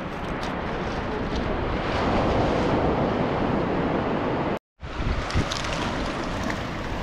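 Ocean surf washing in on a beach of round black pebbles, a steady rush that swells about two seconds in, with wind on the microphone. It cuts out briefly about four and a half seconds in, then the rush of water continues.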